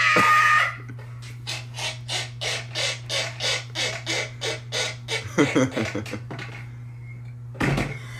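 A man laughing hard. A shrieking burst at the start gives way to a long run of quick breathy laugh pulses, about five a second. A rougher laughing outburst comes about five seconds in, and another short one near the end.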